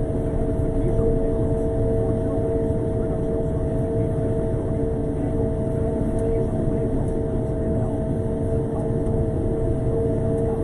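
Road sweeper driving along, its engine and machinery running with a steady low drone and a constant whine of two held tones.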